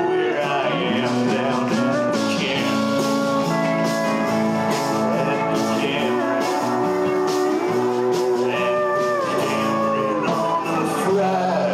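A live folk-rock band playing, with guitars, bass guitar, drums and a Nord Electro 3 keyboard all sounding together.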